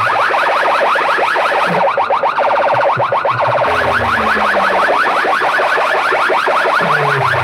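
Large DJ speaker rig playing an electronic competition track at full volume: fast, repeating siren-like upward sweeps several times a second over long falling bass tones, the bass dropping out briefly near the middle.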